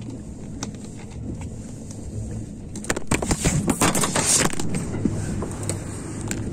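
A 683 series electric limited express train running, heard from inside the car: a steady low rumble with scattered wheel clicks. About three seconds in, a burst of loud rattling clatter lasts roughly two seconds.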